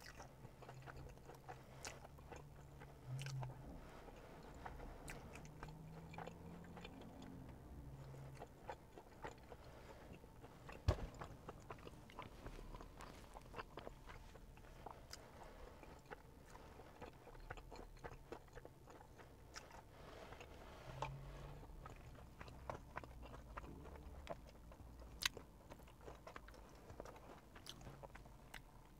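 Faint close-up eating sounds of a mozzarella-filled Korean corn dog in a crumb coating being bitten and chewed, with many small wet mouth clicks. There are sharper clicks about eleven seconds in and again near twenty-five seconds.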